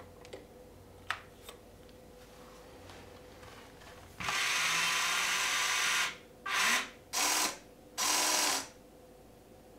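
Electric drive motors of a 1/14 Amewi 22501 RC excavator whirring as the arm and grapple move: a few faint clicks, then one steady run of about two seconds, followed by three short bursts.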